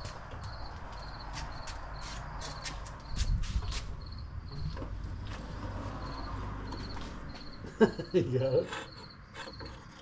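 Crickets chirping in short, evenly repeated pulses, with scattered clinks and knocks of gear being handled at the furnace. A sharp knock about eight seconds in is the loudest sound, followed by a short wavering sound.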